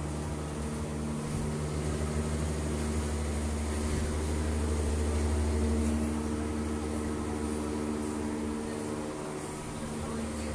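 Steady hum of electric workshop machinery running: a low drone with a few steady higher tones. It grows a little louder midway and eases slightly near the end.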